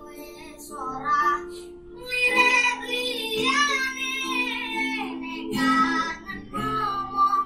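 A boy singing a Javanese song in a high, clear voice with acoustic guitar accompaniment. He holds long wavering notes over steady strummed chords, and the singing grows louder about two seconds in.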